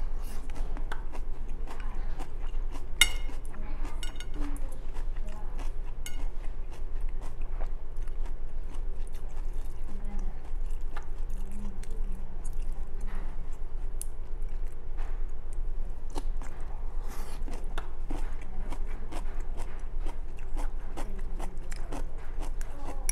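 A person chewing and biting mouthfuls of stir-fried cabbage and rice, with many small sharp clicks of chopsticks against a bowl and plate, over a steady low hum.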